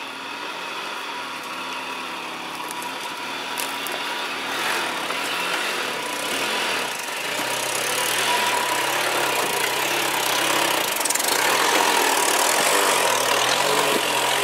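A vehicle engine running steadily, with a broad rushing noise that grows louder over the second half.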